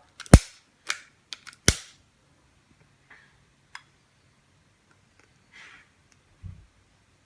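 A quick series of sharp clicks and knocks, the two loudest about a second and a half apart, then a few faint ticks and a brief soft rustle.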